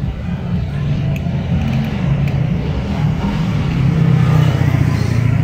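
A motor vehicle's engine running with a low, steady hum, growing louder from about three and a half seconds in.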